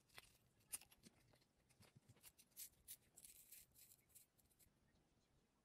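Faint small clicks and rustles from fingers flexing and pressing a silicone resin mold, with a brief soft scratchy hiss about three seconds in.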